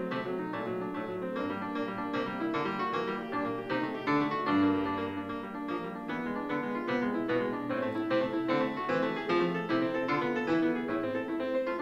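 Solo grand piano, a Petrof, played in a quick, continuous stream of notes.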